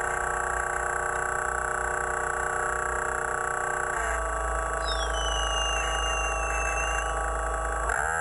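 Background music of sustained chords that change about halfway through and again near the end, with a sweeping whistle-like tone in the middle.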